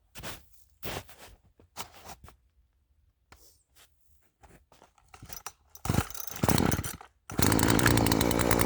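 Footsteps crunching in snow, about one a second, then a few rough bursts. Then a Poulan P3314 two-stroke chainsaw starts running steadily and loudly about seven seconds in.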